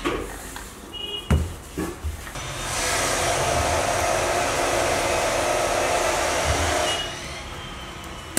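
A few light thuds, then a machine whirring steadily for about four and a half seconds, starting about two and a half seconds in and cutting off sharply.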